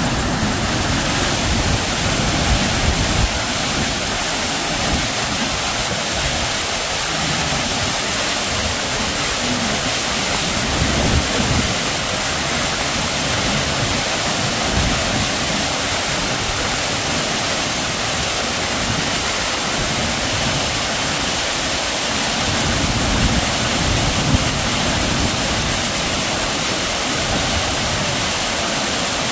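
Mountain waterfall: a loud, steady rush of falling water.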